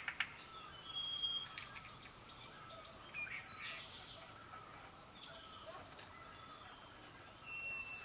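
Wild birds giving short high chirps and whistles over a steady high-pitched insect drone. A run of rapid tapping, about nine taps a second, cuts off right at the start.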